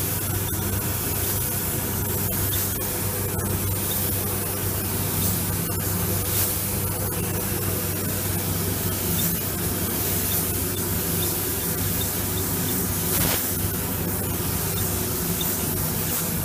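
Compressed-air paint spray gun spraying a car's front bumper: a steady hiss, with a low hum running under it.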